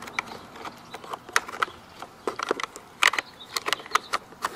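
Irregular plastic clicks and knocks as batteries are pressed into a toy gun's battery compartments and the covers are snapped shut.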